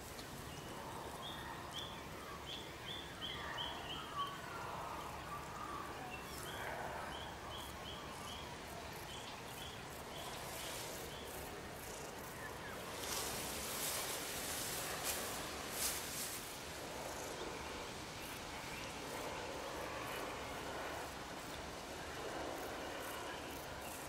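Summer countryside ambience: birds calling, with one singing two runs of short, evenly repeated high notes early on, over a steady background hiss. A few brief noisy bursts come around the middle.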